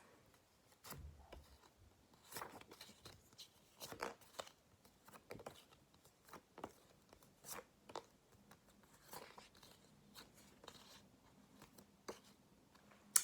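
Faint, irregular rustles and light clicks of paper flashcards being handled from a pack, a few every couple of seconds.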